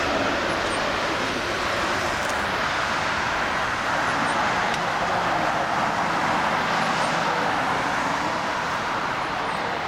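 Boeing 777-200ER's twin jet engines heard as a steady, even rushing noise as the airliner lands and rolls out on the runway.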